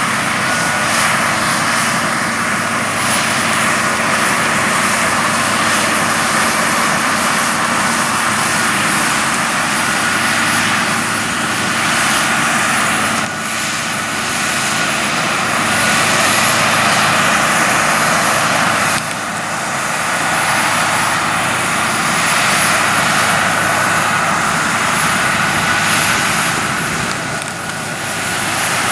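New Holland CX5090 combine harvester working in the crop: a loud, steady mechanical drone with a thin high whine over it. The sound steps abruptly in level twice.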